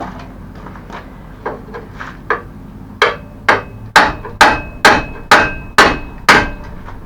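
Hammer blows driving out a rusty hinge pin on a mobility scooter: a few light taps, then about eight hard strikes roughly two a second, each with a short metallic ring.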